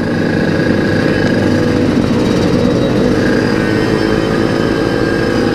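Yamaha RX-King 135cc two-stroke single with an aftermarket exhaust running steadily under way, heard from the rider's seat, without any marked revving.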